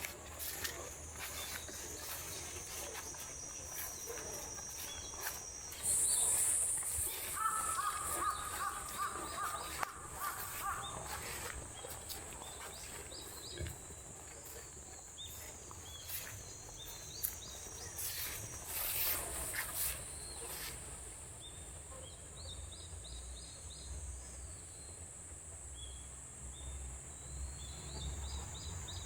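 Countryside ambience: a steady high-pitched drone, with a bird calling about a quarter of the way in and scattered short bird chirps in the second half, over a low rumble of wind.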